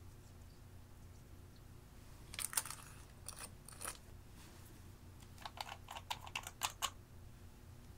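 Light clicks and taps of small plastic and glass makeup containers being handled: a few a couple of seconds in, then a quick run of about eight clicks later on.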